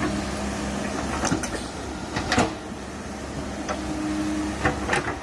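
Komatsu PC130 hydraulic excavator's diesel engine running steadily while it digs out a deep tree stump, with a few short sharp knocks and creaks from the digging, the loudest about two and a half seconds in.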